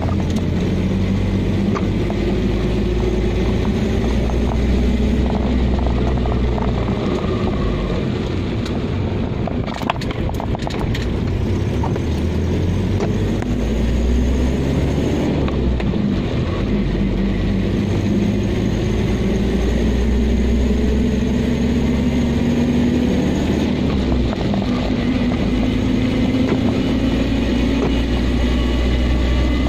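Car engine and tyre noise heard from inside the cabin while driving on a wet road. The engine's pitch slowly rises and falls with speed over a steady hiss, and a few short clicks come about ten seconds in.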